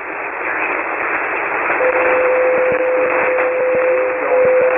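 Hiss from a single-sideband receiver on the 40-metre amateur band, with no voice on the channel. About two seconds in, a steady single-pitched whistle comes in and holds, the heterodyne of a carrier close to the frequency.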